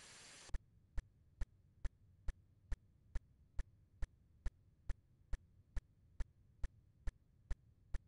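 A steady ticking pulse, a little over two beats a second, over a low hum, starting as the background hiss cuts off about half a second in.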